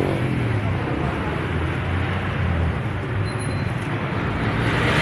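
Steady street traffic noise, a continuous low rumble of passing road vehicles.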